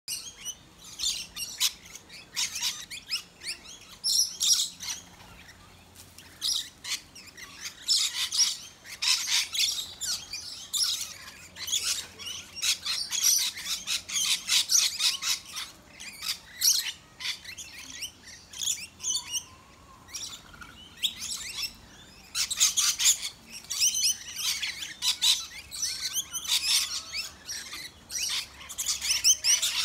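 A flock of rainbow lorikeets chattering and calling while they feed. The calls are high-pitched and come in dense, irregular bursts, with a few short lulls.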